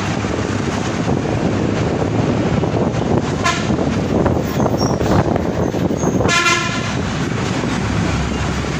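Steady engine and road noise of a moving bus heard from on board, with a short vehicle-horn toot about three and a half seconds in and a longer horn blast at about six and a half seconds.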